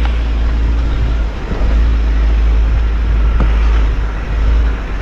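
Jeep driving slowly over a rocky dirt trail: a steady deep rumble from the vehicle, with a few stones crunching and clicking under the tyres.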